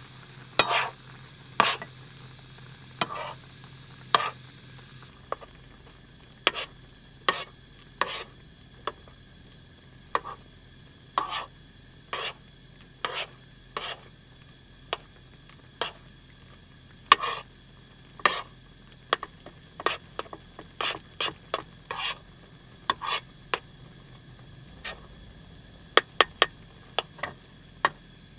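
A utensil stirring and scraping in a metal frying pan, in short strokes about once a second that come quicker near the end, with food sizzling faintly in the pan and a low steady hum underneath.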